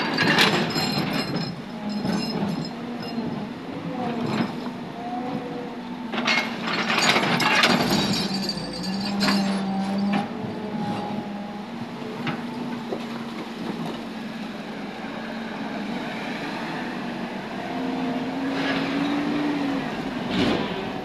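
JCB tracked excavator's diesel engine running, its pitch shifting as the machine works. Broken concrete and rubble clatter against the bucket several times, loudest from about six to eight seconds in, with more clatter near the start and near the end.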